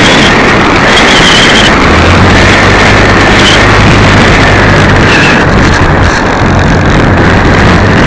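Loud, steady rush of airflow over an RC glider's onboard camera microphone in flight, with a faint steady whine running underneath.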